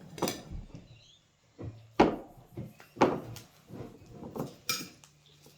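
Slime being mixed in a bucket: a series of irregular sharp knocks and scrapes as the mixing tool hits the container, the loudest about two and three seconds in.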